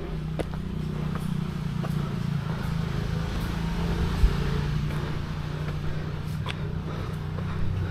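Motorcycle engine running, with a steady low hum and a hiss that swells through the middle and eases off toward the end. A single sharp knock comes a little past four seconds in.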